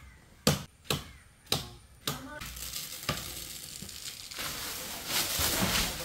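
A run of sharp knocks, about one every half second, stopping a little after two seconds in, then a steady rustling hiss that grows louder near the end.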